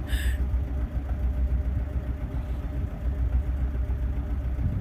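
A sailboat's engine running steadily with a low rumble while motoring. A brief high squeak sounds just after the start.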